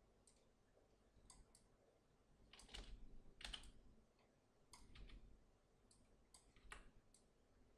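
Faint, irregular clicks of a computer mouse and keyboard, about a dozen scattered over several seconds.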